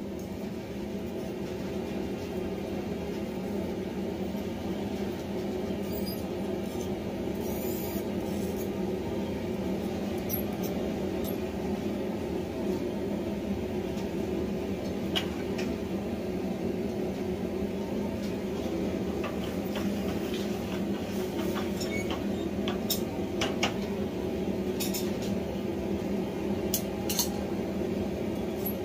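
A steady low hum of running workshop equipment, with scattered light metal clinks as small hand-forged tongs are handled at the anvil.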